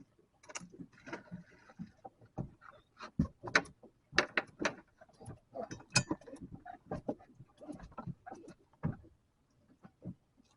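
A quick, irregular run of clicks, knocks and clatter from fishing gear being handled on a boat deck, loudest in the middle.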